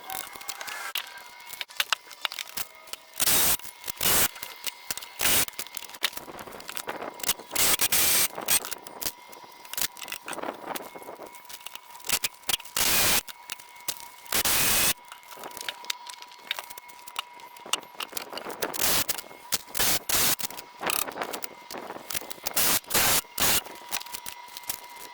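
Irregular short bursts of work noise from carpentry, each lasting under a second, over a faint steady high-pitched tone.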